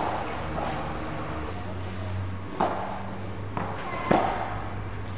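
Tennis rally on an indoor court: a ball is struck by rackets and bounces, sharp hits at the start, about two and a half seconds in and around four seconds in, each ringing briefly in the large hall.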